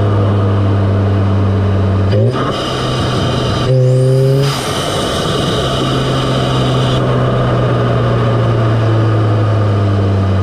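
Audi S3's turbocharged 2.0-litre four-cylinder heard at its APR carbon fiber open intake, idling steadily. A small throttle blip comes about two seconds in, then a sharper rev about a second later with a fast-rising whistle and induction noise, before it settles back to idle.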